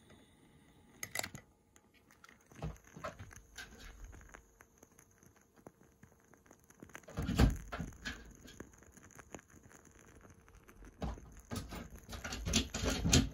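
Wooden wick of a freshly lit candle crackling with faint, irregular pops. A few louder low thumps come about seven seconds in and again near the end.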